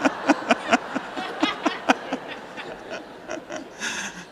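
A person laughing in a quick run of short ha-ha pulses, about four or five a second, that grows weaker and dies away toward the end.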